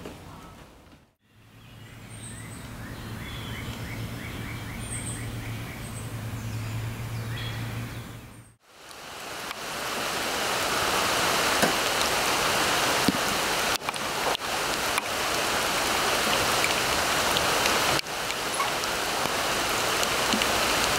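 A low steady hum with faint high chirps, cut off about eight seconds in and followed by a steady, even hiss like rain that lasts to the end.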